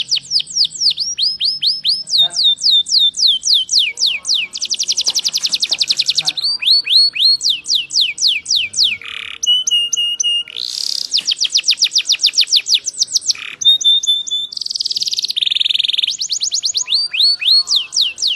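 Domestic canary singing a loud, continuous song of rapid trills: each phrase is a quick run of falling notes repeated many times a second, switching to a new phrase every second or two, with a few short held whistles and rolls in between.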